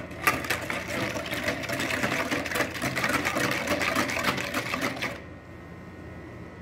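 Wire balloon whisk beating a thin liquid in a plastic mixing bowl: a fast, steady rattle of wires against the bowl and splashing, stopping about five seconds in.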